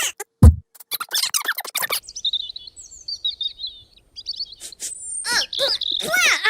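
Cartoon sound-effect montage. High-pitched squeaky chattering voices are cut by a short, loud low burst, a cartoon fart sound, about half a second in. Bird chirping follows from about two to four and a half seconds in, then the squeaky chatter returns.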